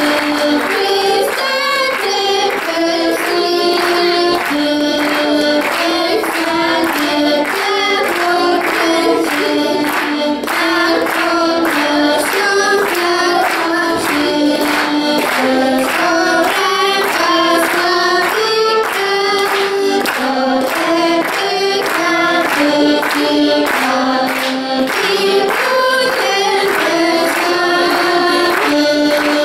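Children singing a song, led by a girl's voice, to the accompaniment of diatonic button accordions (heligónky) keeping a steady, even bass-and-chord beat.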